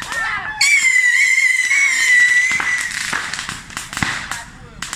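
Whistling firework: a shrill, steady whistle starts suddenly about half a second in, holds for about two seconds and fades away, followed by a few sharp pops.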